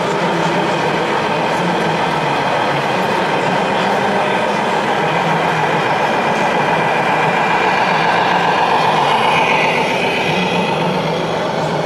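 Radio-controlled Scania model truck running, a steady engine-like rumble over the din of a large hall, with a higher whine that swells and fades near the end.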